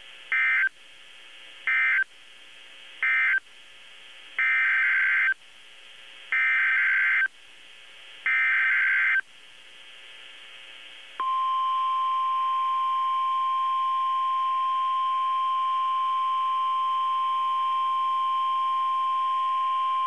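NOAA Weather Radio emergency alert tones. First come three short buzzy data bursts (end-of-message codes), then three longer buzzy header bursts about a second each. About eleven seconds in, the steady single-pitch warning alarm tone starts and holds for about nine seconds. The header codes a hurricane force wind warning as a Hurricane Warning (HUW).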